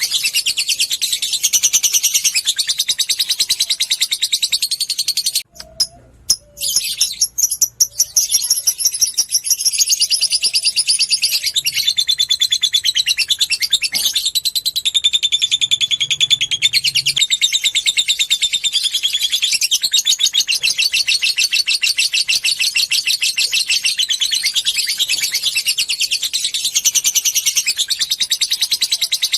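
Lovebird ngekek: a long, rapid, high-pitched chattering trill made of many quick pulses a second. It breaks off briefly about five seconds in, then resumes and runs on unbroken.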